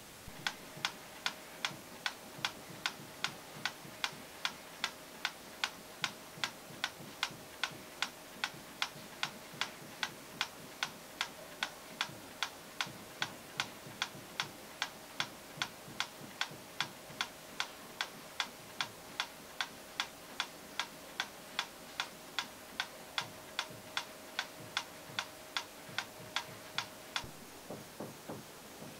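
Steady, even ticking, about two ticks a second, over a faint steady tone; the regular ticking stops shortly before the end, with a few softer, uneven ticks after it.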